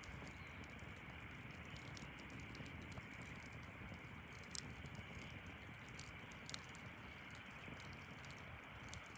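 Faint steady background hiss with scattered small crackles and clicks; a sharper click comes about four and a half seconds in and another about six and a half seconds in.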